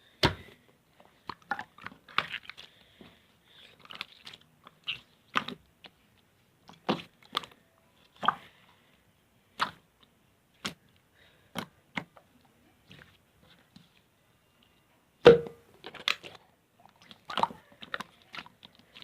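A string of irregular sharp clicks and taps, roughly one every half second to a second, with a louder knock about fifteen seconds in.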